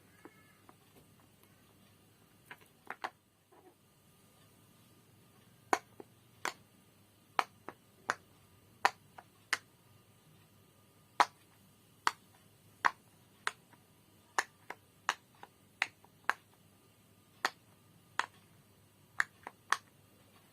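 Bubbles of a silicone pop-it fidget toy being pressed in one at a time, each giving a sharp pop. A few pops come a few seconds in, then a long, unhurried series of single pops roughly every half second to a second.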